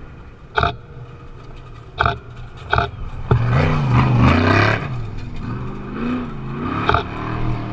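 Trophy truck engine revving hard as the truck passes close by, its pitch rising and falling, loudest about three and a half to five seconds in and fading as it pulls away. A few sharp cracks come before it and once more near the end.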